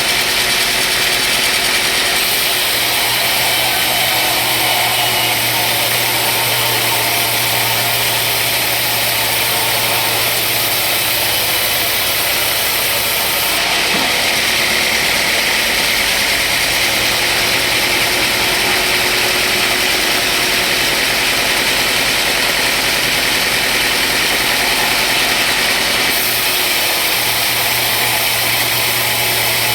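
Sawmill machinery running steadily, a continuous engine-like hum with a loud hiss whose character shifts slightly a few times.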